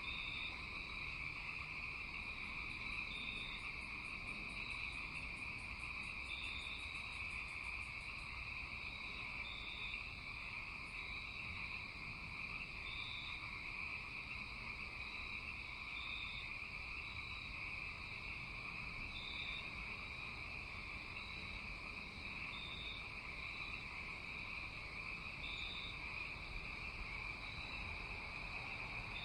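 Night chorus of crickets or other insects and frogs: a steady high trill, with short high calls repeating about every second and a half. A fast, very high pulsing joins from about two to eight seconds in.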